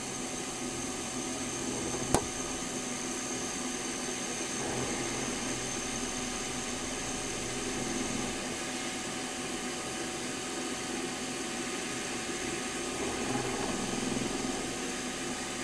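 Milling machine spindle running steadily with a small centre drill spotting a hole in a small metal part, a steady hum with a high whine above it. A single sharp click about two seconds in.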